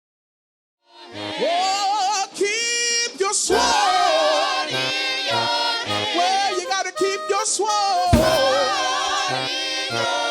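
Silent for about the first second, then a gospel praise song begins: singing voices, with a low bass line and a sharp drum hit about eight seconds in.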